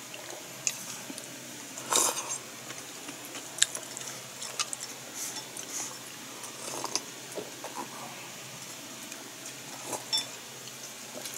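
Eating sounds: sips of miso soup from a wooden bowl and chewing, among scattered light clicks and knocks of tableware. The loudest is a short burst about two seconds in.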